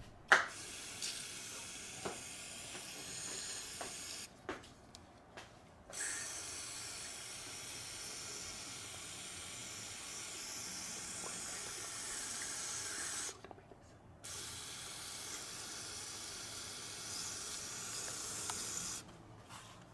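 Aerosol mass air flow sensor cleaner hissing out through a thin straw onto the dirty sensor element, in three long sprays of about four, seven and five seconds with short breaks between.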